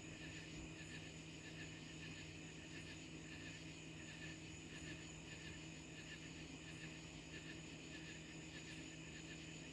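Faint background: a steady low hum with quiet, evenly repeating chirps of crickets.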